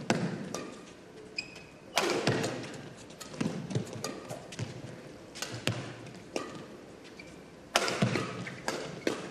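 A fast badminton rally: rackets smacking the shuttlecock, with squeaks of court shoes and footfalls between the hits. The sharpest hits are about 2 seconds in and near the end, and the hits ring briefly in the hall.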